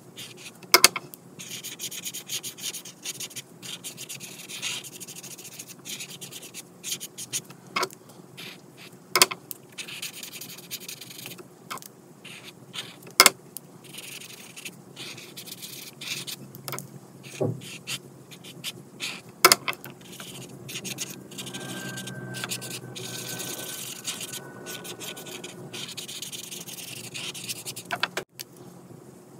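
Alcohol marker tip rubbing and scratching across coloring-book paper in short back-and-forth strokes, with a few sharp clicks among them.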